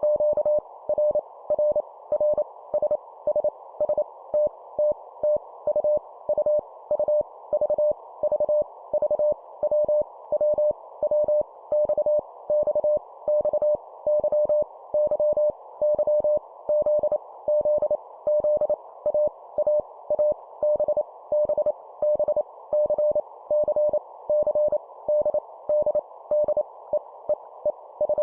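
Morse code (CW) sent at 25 words per minute as a steady single-pitch tone near 600 Hz, keyed rapidly in dits and dahs, each letter repeated three times for copy practice. A steady band of hiss sits under the tone between elements.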